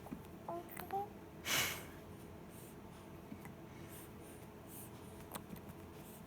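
A baby with the hiccups making small breathing sounds: a brief high squeak about half a second in, then a short, sharp, noisy intake of breath about a second and a half in. Otherwise faint room noise.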